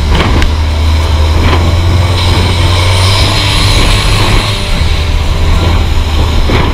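Longtail boat engine running steadily at speed, a deep unbroken drone, under a rushing hiss of wind and water that swells in the middle, with a few short knocks.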